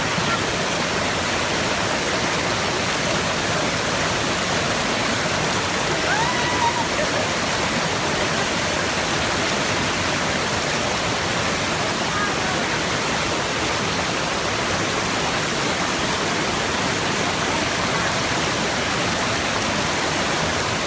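Waterfall: a steady, dense rush of falling water, unchanging throughout.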